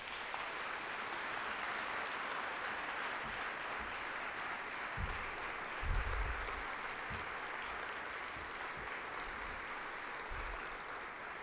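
Audience applauding steadily, thinning out near the end, with a few low thumps in the middle.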